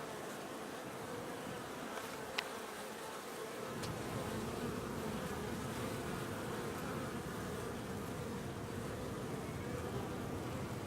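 Honey bees buzzing in flight at a busy hive entrance during a foraging flight, the buzz growing fuller and louder about four seconds in. A single brief click a couple of seconds in.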